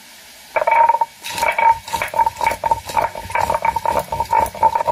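Stone grinding slab and hand stone (sil-batta) crushing dried red and green chillies: rhythmic stone-on-stone knocking and scraping, about four strokes a second, starting about half a second in.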